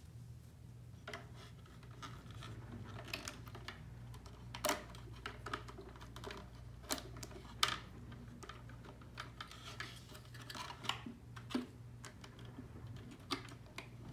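Irregular small plastic clicks and taps from hands handling the valve, push-fit fittings and tubing of an Aquaphor RO 101 reverse-osmosis filter. The clicks sit over a faint steady low hum, with a few sharper clicks about five and seven and a half seconds in.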